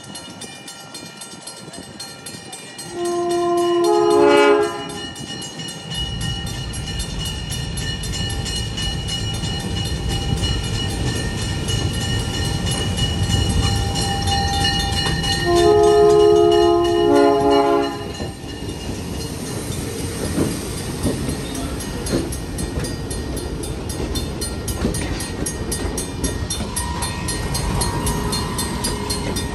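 Diesel locomotive air horn sounding two chord blasts about twelve seconds apart, the first about three seconds in, the second about fifteen seconds in and slightly longer. From about six seconds in, a steady low rumble of the train running past continues under the horn.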